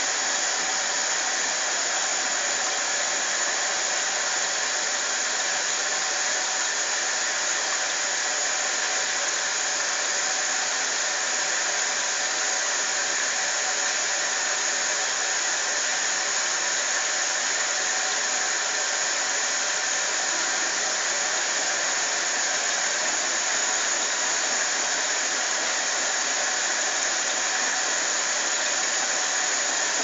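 AEG 640 front-loading washing machine running through its prewash, giving a steady, even hiss with no pauses.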